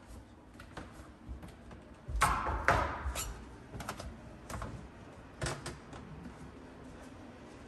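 Footsteps going down a flight of indoor stairs: irregular knocks and taps, the heaviest thuds about two to three seconds in, then lighter steps.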